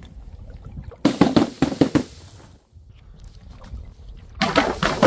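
Objects dropped onto a hard surface and smashing or bursting on impact: a rapid cluster of sharp cracks and crunches about a second in, and a second cluster near the end, over a steady low rumble.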